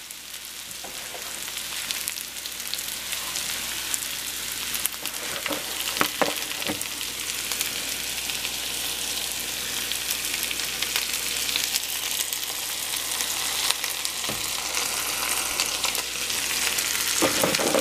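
Cornmeal-breaded okra and yellow zucchini sizzling in hot oil and bacon grease in a cast iron skillet: a steady frying hiss with scattered pops. The sizzle builds as more canola oil is poured in around the pieces.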